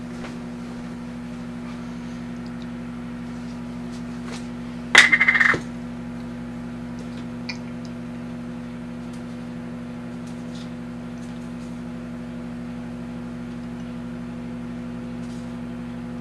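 Amazon Basics microwave oven running with a steady electrical hum. About five seconds in there is a brief, loud clatter lasting about half a second.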